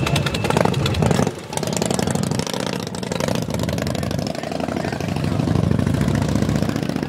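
Motorcycle engine running at idle, a fast, even run of firing pulses, with a short dip in loudness about a second and a half in.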